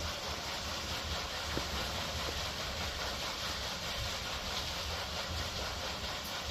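Water rushing and splashing over a turning water wheel: a steady hiss with a low rumble underneath.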